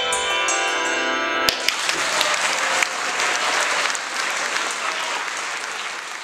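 Last notes of a peal on 24 handbells ringing out, the lowest bells stepping down, then applause breaks out about a second and a half in and gradually fades away.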